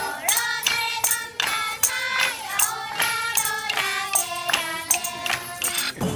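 A group of children singing a song together, accompanied by small accordions, over a sharp percussive beat about twice a second.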